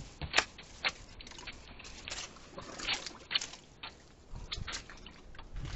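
Water lapping and slapping against a small boat's hull, with irregular sharp knocks and splashes.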